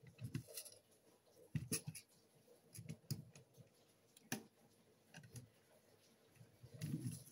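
Faint handling sounds of a plastic toy model: soft knocks and small clicks as its cannon-and-fin unit is swivelled by hand, with one sharper click about four seconds in.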